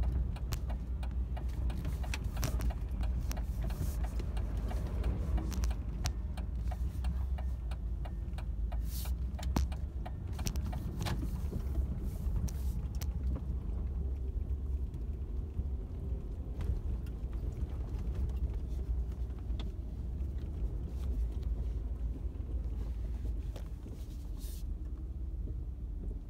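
A 2001 Dodge Dakota crew-cab pickup being driven, heard from inside the cab: a steady low engine and road rumble with scattered clicks and rattles, easing off a little near the end.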